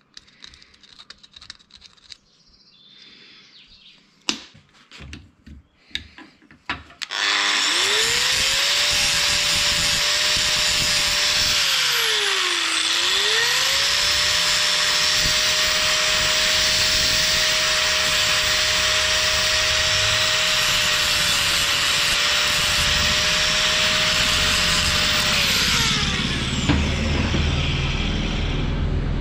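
A few handling clicks and knocks, then an electric power tool starts and runs steadily for about twenty seconds, its motor dropping in pitch under load for a moment near the middle before picking up again, then winding down.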